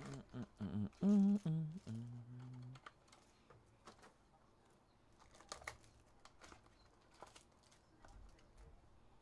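A wordless voice sound in the first three seconds, wavering and then held steady, followed by quiet clicks, taps and crinkles of trading cards and a torn pack wrapper being handled.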